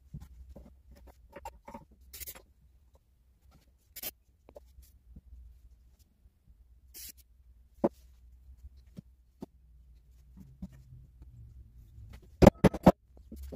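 Wooden model parts being handled and set down on a wooden workbench: scattered light taps and clicks with a few short hisses, then a quick run of about four loud wooden knocks near the end.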